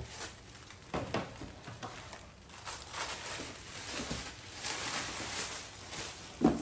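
Wrapping paper rustling and crinkling as stiff gift-wrap is folded back by hand from a cardboard box without being torn, with a brief thud near the end.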